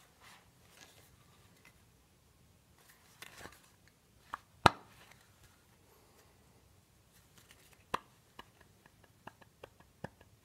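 Metal parts of a 200-4R transmission front pump, the pump body and the stator shaft, clicking and knocking against each other as they are turned by hand to line up their bolt holes. Scattered light clicks, with one sharp knock about four and a half seconds in and a run of small quick ticks near the end.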